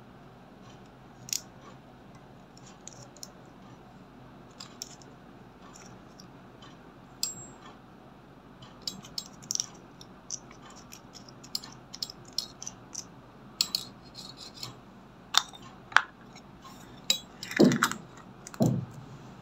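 Small plastic spatula scraping and tapping pressed eyeshadow and glitter out of a round plastic makeup compact, light scratches and clicks coming more often as it goes on. Near the end, louder plastic clicks and knocks as the compact is handled and its lid put on.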